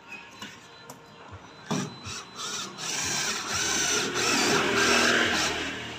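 Bonkyo cordless battery drill starting in a few short bursts about two seconds in, then running steadily for about two and a half seconds as its bit cuts into a thin steel sheet. It winds down near the end.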